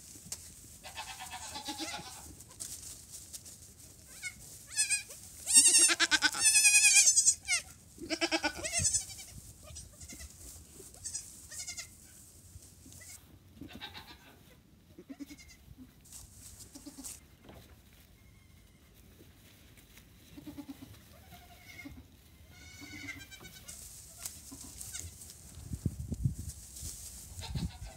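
Nigerian Dwarf goat kids bleating: a run of loud, quavering bleats a few seconds in, then scattered softer bleats.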